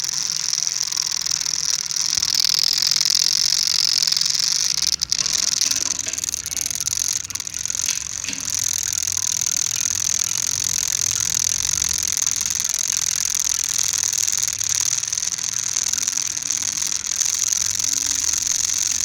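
A continuous mechanical grinding noise with a steady high hiss, dropping out briefly about five seconds in.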